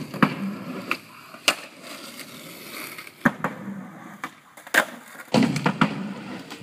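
Skateboard wheels rolling on asphalt, broken by several sharp clacks of the board popping, hitting and sliding on a homemade wooden grind box. The rolling grows louder for a stretch near the end.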